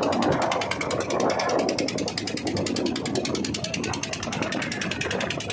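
Motorboat engine running steadily, with a fast, even clatter of about ten beats a second over a low rumble.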